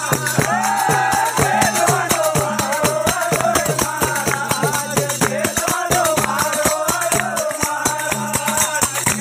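A devotional folk bhajan: a man singing a sustained melody in the Vagdi language, over a dholak and jingling hand percussion beating a fast, steady rhythm.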